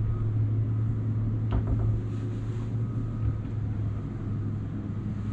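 Steady low hum of the yacht's onboard machinery running below decks, with a single light knock about a second and a half in.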